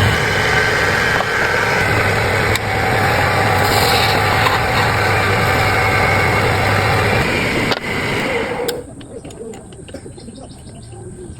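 A motor-driven machine running steadily with a low hum, cutting off sharply about nine seconds in; a quieter background with small clicks follows.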